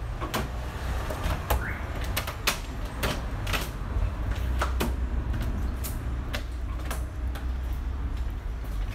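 A cloth wiped by hand in quick strokes over a car's body panels, making a run of short, irregular swishes and rubs. A steady low rumble runs underneath.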